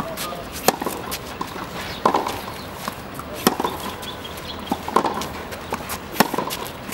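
Tennis rally on a clay court: sharp pops of the ball coming off the racket strings about every one and a half seconds, louder and softer shots alternating as the near and far players hit, with fainter ticks between them.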